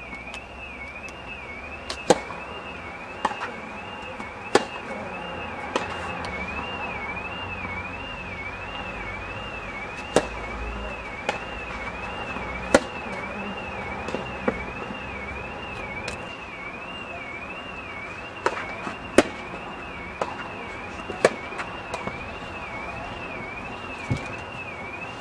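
Tennis rally: sharp knocks of racket strings hitting the ball and the ball bouncing, coming irregularly every second or two. A steady high warbling tone runs underneath.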